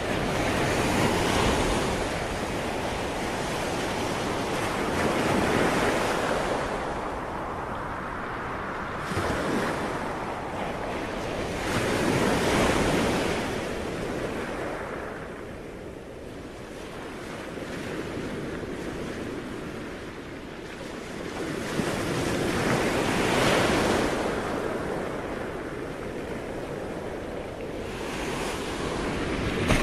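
Sea waves washing in on a shore, the surf swelling and falling back every few seconds.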